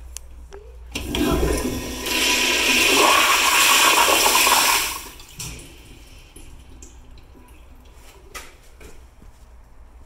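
1999 American Standard Neolo toilet flushing through its flushometer valve. A loud rush of water starts about a second in and cuts off sharply about four seconds later, leaving a low trickle.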